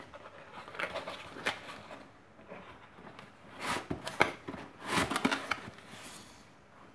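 Cardboard packaging being handled by hand: box flaps opened and the contents pulled out, giving a series of short rustles and scrapes, the louder ones in the second half.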